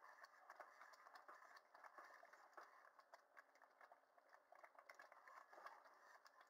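Faint, irregular clicking and scraping of a wire whisk stirring thick, cooking coconut fudge in a metal pot.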